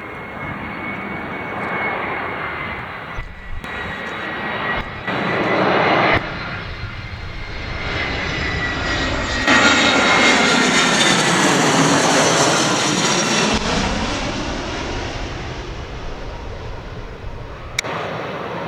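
An airliner's engines passing close by: a steady whine over a broad rushing noise that grows to its loudest about ten to thirteen seconds in, with a sweeping, phasing tone as it passes, then fades away.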